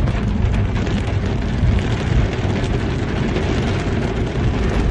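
Heavy rain falling on a car's roof and windscreen, heard from inside the car: a loud, dense, steady patter with a strong low rumble.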